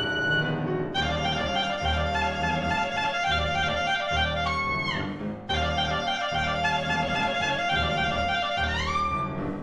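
Solo clarinet playing with piano accompaniment. The clarinet plays a fast line over repeated low piano chords, sweeps down in a long glissando about five seconds in, and swoops upward near the end.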